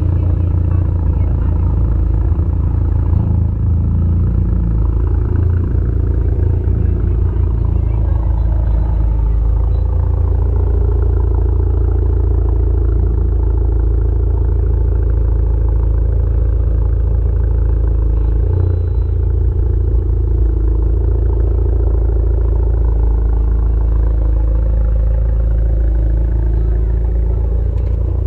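A car driving at a steady pace: a continuous deep engine and road rumble that drifts only slightly in pitch.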